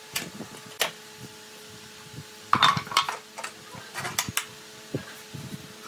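A steel pipe clamp being handled and fitted across a wooden chair frame: scattered metallic clanks and knocks of the pipe and its screw against the wood and the floor, the loudest about two and a half seconds in. A faint steady hum runs underneath.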